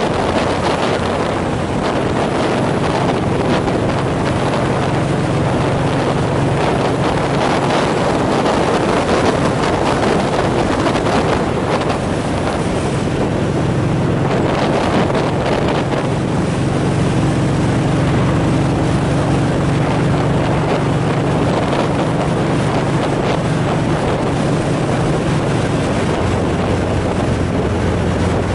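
Wind rushing over the microphone of a vehicle moving at highway speed, over the steady low drone of its engine and road noise.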